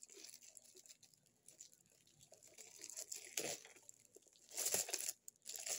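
Clear plastic packaging crinkling as a packaged soap holder is handled. The crinkling comes in a few short bursts, the loudest about three and a half seconds in and again a second later.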